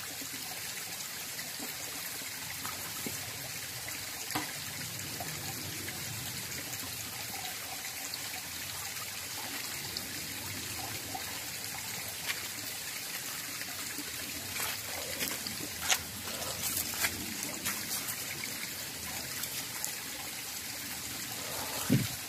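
Small shallow stream trickling steadily over rocks, with a few brief knocks and rustles about four seconds in, around sixteen seconds in, and near the end.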